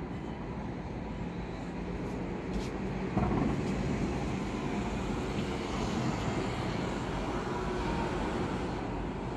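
Fireworks going off at a distance, their booms merging into a continuous low rumble that gets louder about three seconds in.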